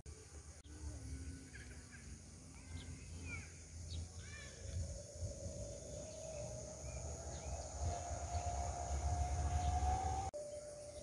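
Outdoor hillside ambience: short bird chirps in the first half over a steady high insect hiss and a low rumble. In the second half a drawn-out tone slowly rises in pitch and grows louder, then cuts off abruptly near the end.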